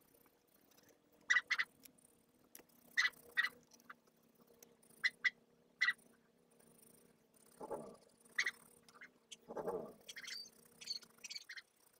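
Felt-tip marker squeaking against sketchbook paper in short strokes, the squeaks coming in quick pairs, with two duller rubbing scrapes about two-thirds of the way through and a run of quicker squeaks near the end.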